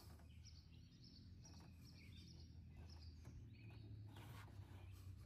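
Near silence: faint outdoor ambience with a steady low hum, short faint bird chirps and a few light clicks.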